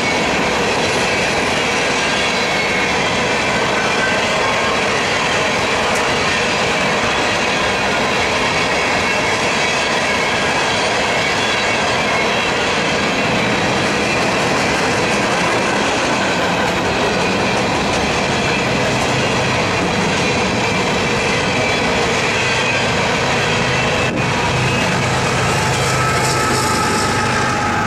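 Empty coal hopper cars rolling past, a steady rumble and clatter of steel wheels on the rails with a faint steady squeal. In the last few seconds the low drone of a BNSF GE ES44AC diesel locomotive in the train swells as it passes.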